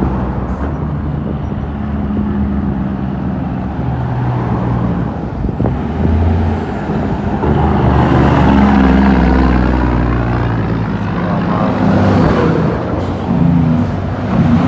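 Heavy diesel truck engine running while driving, its note shifting up and down in steps.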